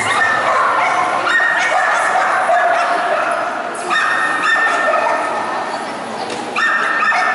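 Dogs whining and yelping in long, high, drawn-out cries, one after another, echoing around a large hall.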